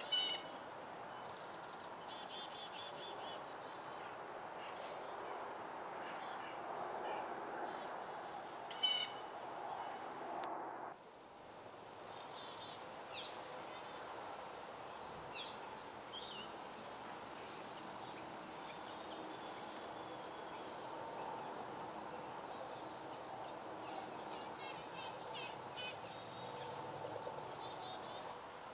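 Small birds giving short, high chirps and trills, scattered and overlapping, over a steady outdoor background hiss. The background changes abruptly about eleven seconds in.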